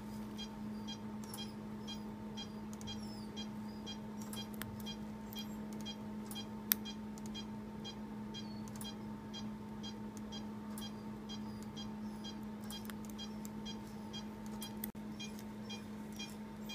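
Anaesthesia monitor beeping steadily, about two short high beeps a second, keeping time with the anaesthetised dog's pulse, over a steady equipment hum. Faint clicks of steel suturing instruments come through, with one sharper click about seven seconds in.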